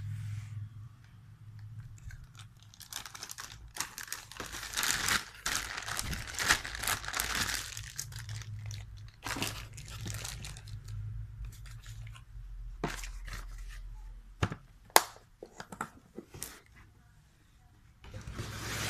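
Rustling, scraping and crinkling of foam and hard plastic as an air impact wrench and its sockets are packed into their carry case's foam insert, followed by several sharp clicks and knocks, the loudest about fifteen seconds in. A low steady hum runs underneath in the first half.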